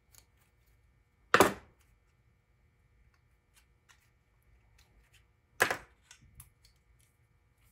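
Two sharp knocks, about four seconds apart, among light clicks from parts being handled while clamps are shifted on a voice-coil former on a metal winding spindle.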